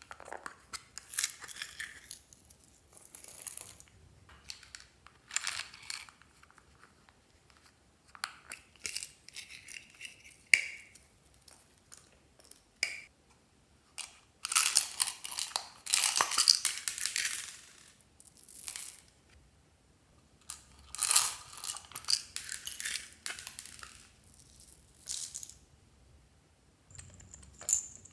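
Hard plastic toy containers being handled and clicked open, and small plastic beads and sequins rattling as they are shaken out into a glass dish, in short bursts with quiet gaps between.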